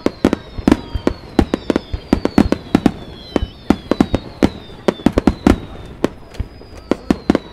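Rapid-fire barrage of aerial fireworks (a star mine): a dense run of sharp booms and bangs, several a second, with thin high whistles sliding down in pitch over them.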